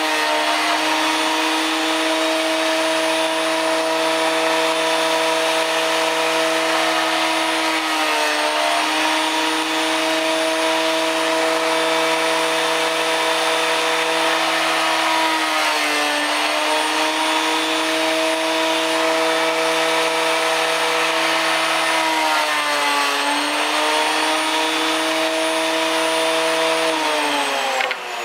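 Electric thickness planer running with a steady high whine, its pitch sagging briefly three times under the load of a cut through birch. Near the end it is switched off and spins down, the whine falling in pitch.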